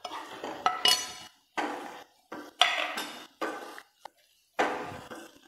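A metal spoon scraping and clinking against a plate and the pan, and a wooden spatula stirring thick chilli paste in a non-stick pan. The sounds come in short bursts with brief silent gaps between them.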